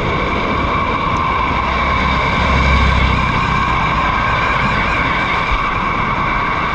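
Steady, loud rushing of heavy rain and floodwater, with a low rumble that swells briefly about two and a half seconds in.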